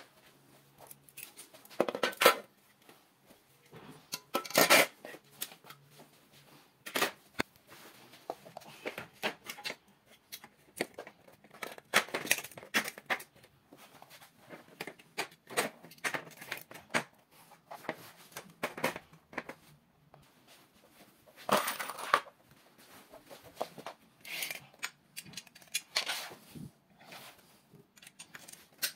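Irregular clicks, knocks and scrapes of metal sliding-door frame rails and their plastic corner fittings being handled and fitted together, with a few louder knocks among them.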